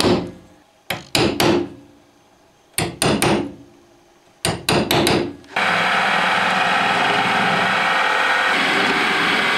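Hammer striking a steel centre punch into chipboard, in four quick groups of three or four blows. About halfway through, a bench drill press starts and runs steadily, drilling small pilot holes into the chipboard.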